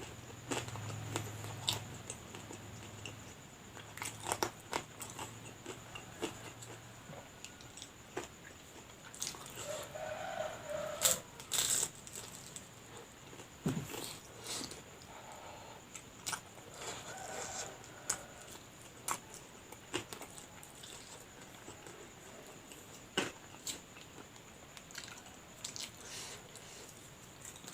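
Close-up eating of fried lumpia spring rolls: irregular crisp bites and crunches of the fried wrapper, with chewing in between.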